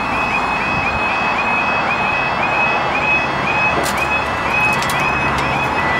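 Railway level crossing warning alarm sounding, a high pitched tone repeating rapidly and evenly, over a steady rushing background noise.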